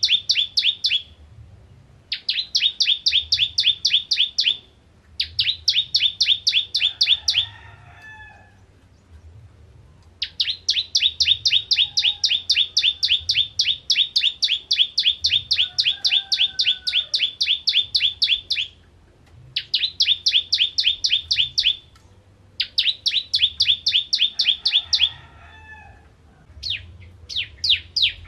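A caged ciblek (bar-winged prinia) sings in its rapid-fire 'nembak' style: loud, fast runs of identical sharp notes, about six or seven a second, in bursts of a few seconds with short breaks. One long unbroken run lasts about eight seconds in the middle. Near the end the notes turn higher and more spaced.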